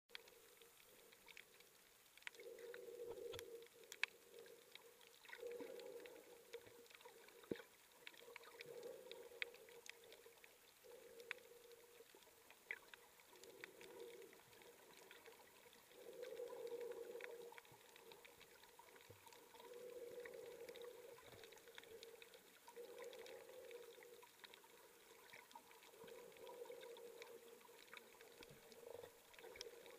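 Faint, muffled underwater sound: a soft rushing swell about every three seconds, in the rhythm of a snorkeler breathing through the snorkel, with scattered faint clicks.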